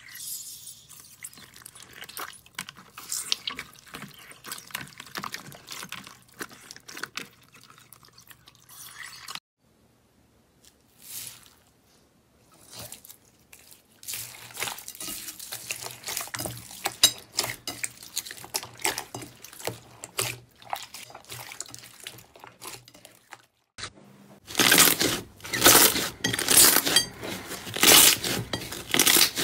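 Hands squishing and pressing slime: wet clicking and squelching as cubes are pushed through clear green slime, then squeezing pink slime packed with small beads. Near the end comes a louder run of crackling pops as thick white slime is kneaded.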